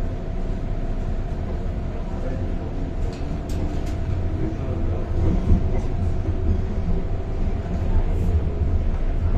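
MTR Island Line M-Train running along the track, heard from inside the carriage: a steady low rumble of wheels on rail with a constant hum, and a few brief sharp high sounds about three and a half seconds in and again near the end.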